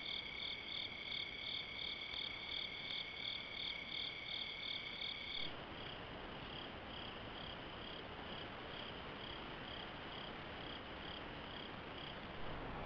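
Night insects, crickets among them, chirping in a steady rhythm of a few high chirps a second, with a continuous high trill under them for the first five seconds or so. About five and a half seconds in the sound changes abruptly and the chirping goes on more faintly and more slowly.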